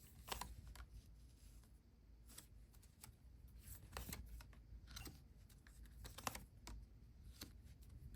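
Faint, irregular light clicks and flicks of tarot cards being handled and laid out.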